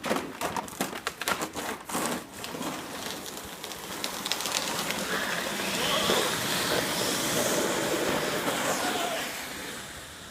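Sled sliding down an icy driveway: a run of knocks and scrapes as it gets going, then a steady grinding hiss that grows louder and fades away near the end.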